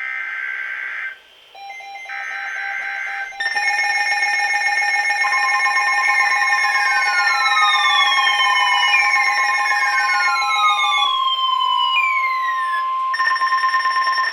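Emergency alert tones over weather radio. First come short, data-like warbling bursts of the SAME header, each about a second long with gaps between them. Then a loud layered alarm of steady tones and repeated falling sweeps begins, and a long steady attention tone holds through most of the rest.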